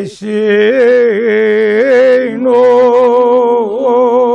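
A man's voice chanting a Kashmiri marsiya, a mourning elegy for Imam Husayn, unaccompanied. It holds long, slightly wavering notes in two phrases, with a quick breath at the start and another break about two and a half seconds in.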